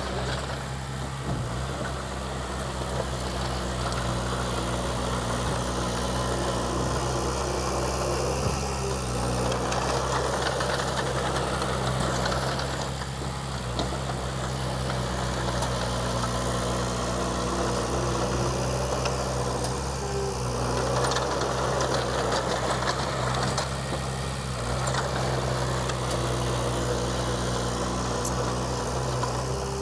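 Komatsu D20P bulldozer's diesel engine running steadily, with the sound swelling every few seconds as it takes load.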